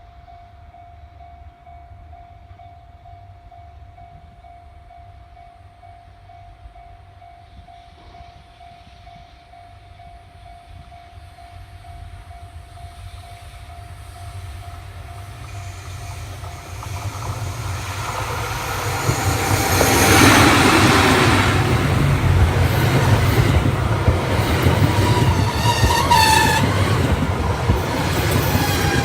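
Level-crossing alarm ringing in a steady repeating tone while a train approaches, its rumble building until an EF81 electric locomotive and the Cassiopeia sleeper cars pass close by, loud from about two-thirds of the way in, with a few brief high tones near the end.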